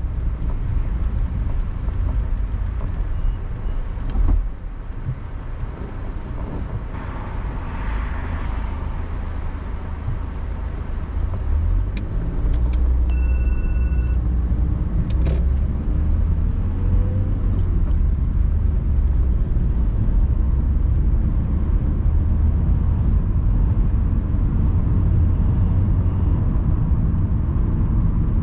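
Car being driven, heard from inside the cabin: a steady low engine and road rumble, with a few sharp clicks and a short beep about halfway through.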